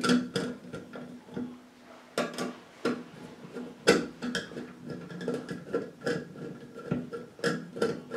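Hand screwdriver turning screws through a metal recessed toilet paper holder into the clamping bracket behind the drywall: irregular metallic clicks and scrapes, with a few sharper ticks about two, three and four seconds in.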